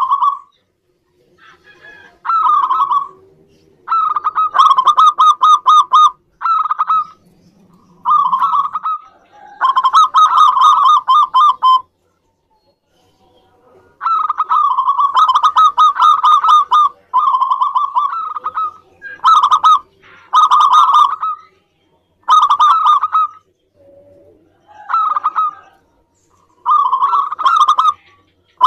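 Zebra doves (perkutut) calling: about a dozen phrases of rapid staccato coos, each a second or two long, some fainter than others. Two seconds of silence about twelve seconds in.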